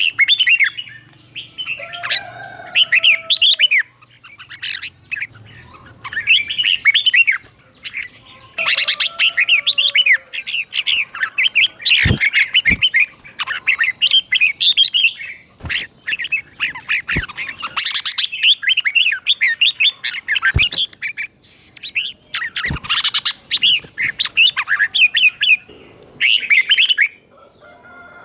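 Red-whiskered bulbul singing in quick, chirpy phrases in repeated bursts with short pauses between them, its song phrases doubled in pairs. A few sharp clicks sound in the middle of the stretch.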